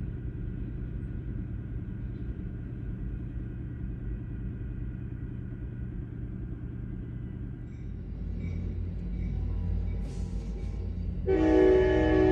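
Diesel locomotive rumbling as it comes closer, growing louder from about eight seconds in. Near the end its multi-chime air horn starts blowing, a chord of several held tones.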